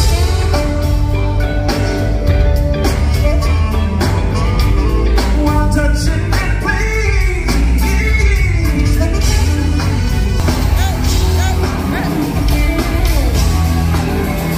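Live smooth-jazz band playing on stage: a melodic lead line over electric bass, drums, electric guitar and keyboards, with a strong steady low end.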